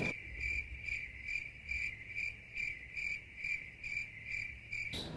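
Crickets chirping sound effect: a steady high chirp pulsing about two to three times a second that starts and cuts off abruptly, the stock 'crickets' gag for a bored, empty silence.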